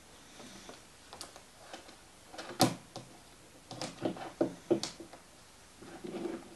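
Scattered clicks and knocks of objects being handled and set down on a desk. The loudest is a sharp knock about two and a half seconds in, followed by a quick run of clicks a second later and a short rustle near the end.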